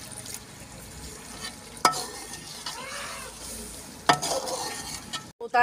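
Chicken masala in a cooking pot sizzling and being stirred, a little water just added, with two sharp knocks about two seconds apart.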